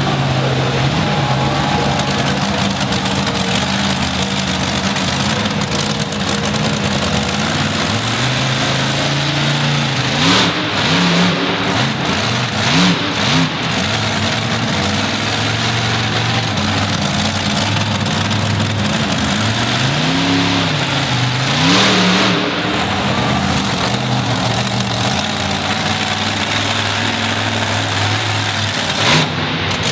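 Monster truck engine running at a steady idle-to-mid throttle, revving up and down in two stretches, about ten to thirteen seconds in and again about twenty to twenty-two seconds in. A few short, sharp noises stand out over the engine near those revs and just before the end.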